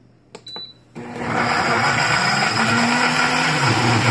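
A click and a short beep as the Blend button is pressed on an Instant countertop blender at speed 10, then about a second in its motor starts and runs loud and steady, chopping walnuts and avocado in water. Its low hum drops in pitch near the end.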